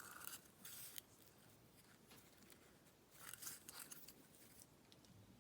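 Near silence, with a few faint rustling and clicking noises from an old bike lock being handled: one about a second in and a short cluster a little after three seconds in.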